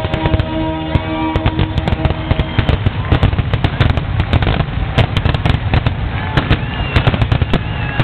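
Fireworks finale heard from about two blocks away: a dense, rapid barrage of bursts and cracks. Music fades out in the first second or so.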